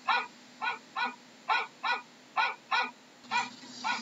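A dog barking over and over, short barks loosely in pairs, about two a second. A hiss of background noise comes up under the barks near the end.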